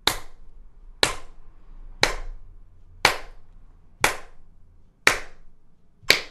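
Hand claps, one a second, seven in all, in time with a metronome beeping at 60 BPM; the beeps are mostly hidden under the claps because the clapping lands on the beat.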